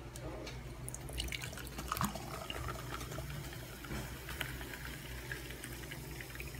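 Dark carbonated soft drink poured into a glass mug, starting about a second in: the stream splashes into the glass and the drink fizzes and crackles as it foams up. A steady low hum runs underneath.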